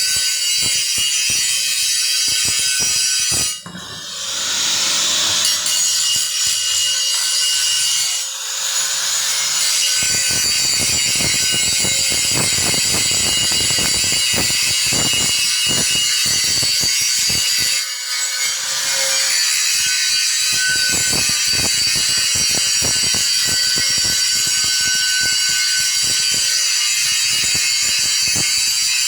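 Stick-welding (SMAW) arc crackling steadily as a weld is run on steel pipe. It briefly dips three times, about 4 s, 8 s and 18 s in, as the arc breaks and restrikes.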